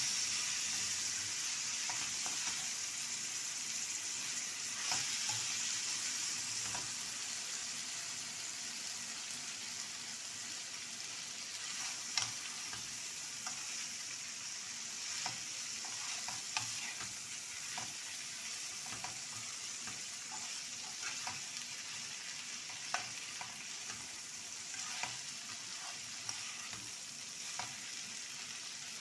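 Chopped vegetables stir-frying in a hot pan: a steady sizzle with scattered clicks and scrapes of the spatula against the pan as they are tossed. The sizzle slowly dies down.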